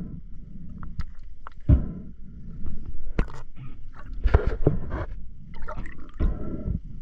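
Muffled water noise with a low rumble and irregular knocks and clicks.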